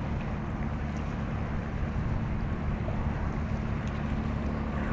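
Steady low drone of a large ship's engines under way, with a constant hum running through it and wind on the microphone.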